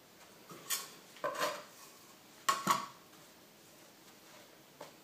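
Kitchen tools knocking and clattering on a wooden pastry board: a few scattered knocks, the loudest a quick pair about two and a half seconds in.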